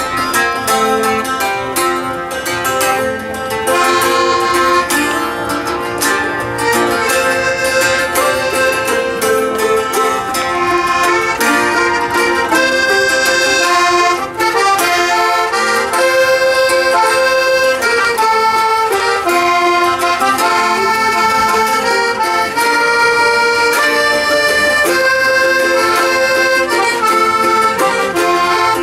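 Folk band playing an instrumental passage of a song: accordion carries the melody in held notes, with acoustic guitar underneath.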